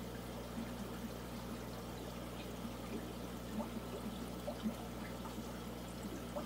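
Aquarium filter running: a steady trickle and bubbling of water with a low, even hum underneath.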